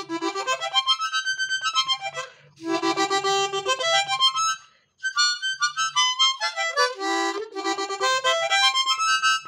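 Harmonica playing quick runs of notes that step down and back up through its range, in three phrases with short breaks about two and a half and five seconds in.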